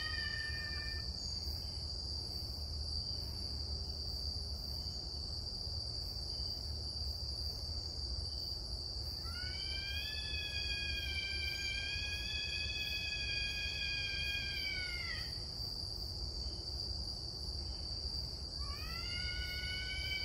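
A long, drawn-out wailing cry from an unseen animal in the night forest. It lasts about six seconds, rising at the start, held, then sliding down at the end, and a second cry begins near the end. A steady high insect drone runs underneath.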